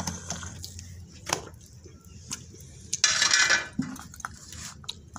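Small children eating and drinking from a cup: scattered small clicks and mouth sounds, with one louder noisy burst about half a second long some three seconds in.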